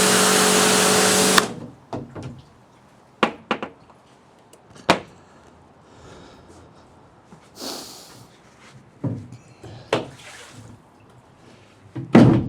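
AVA Evolution P80 pressure washer running with its lance spraying water, cutting off suddenly about a second and a half in. Then scattered knocks and clunks of equipment being handled.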